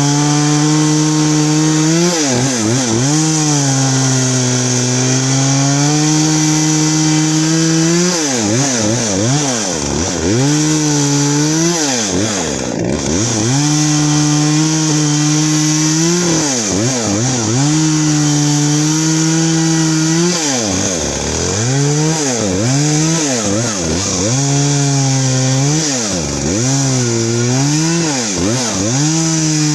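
Poulan two-stroke chainsaw sawing through firewood logs at high revs. The engine pitch drops sharply and climbs back several times, around 2 s, 8 to 13 s, 16 to 18 s, 20 to 22 s and 26 to 28 s, with steady full-speed stretches in between.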